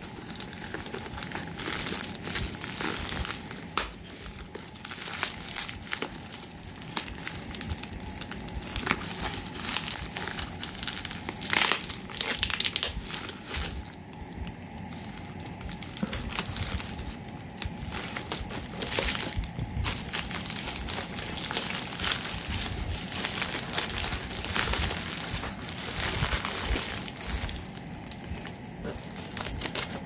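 Crinkling, rustling and tearing of a plastic mailing envelope and its wrapping being handled, pulled open and cut with scissors, in an irregular run of crackles.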